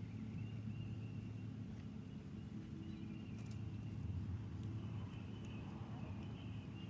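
Outdoor ambience: a steady low rumble with faint, wavering bird calls and a few light clicks.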